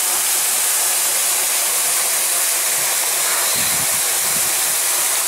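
Waterfall rushing: a steady, loud hiss of falling water, close by.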